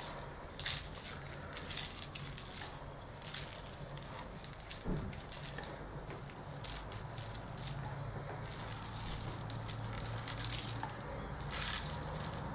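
Dry spice rub being sprinkled over raw pork belly slices laid on butcher's paper: light pattering and crinkling of the paper, with a few louder rustles.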